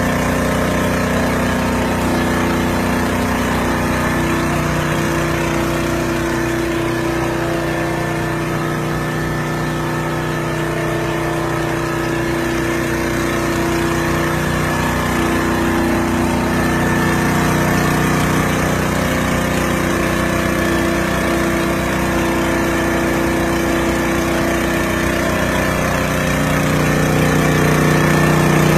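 Engine-driven high-pressure sprayer running steadily at an even pitch, its level dipping slightly in the middle.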